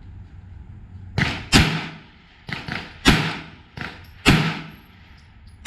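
9mm Glock 19 Gen 5 pistol being fired in slow succession: four loud shots roughly a second or more apart, each with a short ringing tail, with fainter shots between them.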